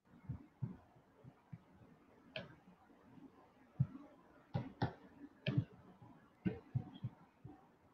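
Irregular, sharp clicks of a computer mouse being used, a dozen or so over a few seconds, over faint background hiss.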